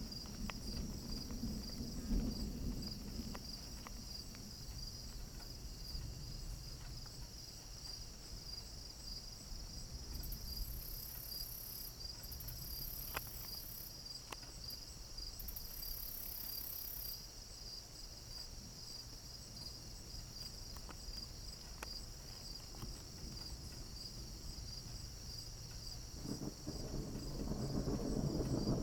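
Crickets chirping in a steady, pulsing high trill, with low thunder rumbling in and building over the last few seconds.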